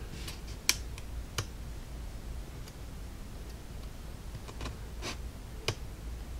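Hobby knife cutting through the small uncut tabs that hold laser-cut wood pieces in their carrier board, giving scattered sharp clicks: a few in the first second and a half, the loudest about three-quarters of a second in, and a few more about four and a half to six seconds in.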